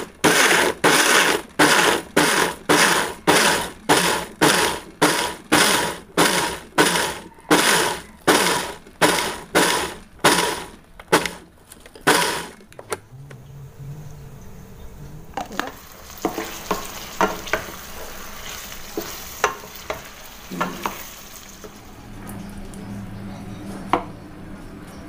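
An electric blender grinding red chilies and shallots, run in short pulses at about two a second. Then diced eggplant frying in a stainless steel pan with a steady sizzle, and a wooden spatula knocking against the pan now and then.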